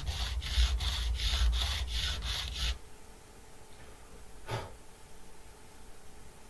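Quick back-and-forth rubbing strokes on a guitar neck's stainless steel frets, about four a second, stopping about three seconds in. A single light knock follows a little later.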